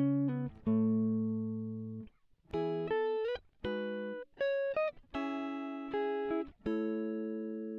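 Background music of plucked guitar: a slow line of single notes and chords, each struck and left to ring and fade before the next.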